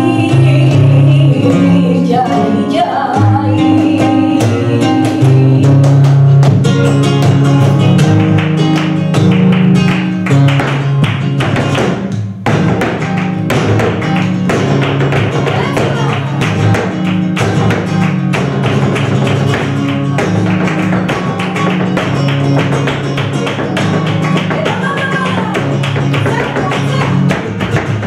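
Live flamenco: an acoustic flamenco guitar playing, with rhythmic hand clapping (palmas). From about ten seconds in, rapid percussive strokes thicken the rhythm, fitting the dancer's footwork in flamenco shoes on the wooden stage.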